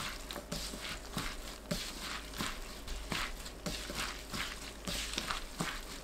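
Julienned cucumber and pickled radish strips being tossed by a gloved hand in a bowl with a wet dressing: faint, irregular squishing and rustling.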